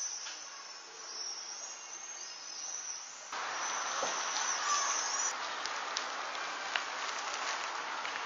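Outdoor ambience of high, repeated chirping. About three seconds in, the sound cuts to a louder, steady rush of outdoor noise with a few sharp clicks, and the chirping dies away soon after.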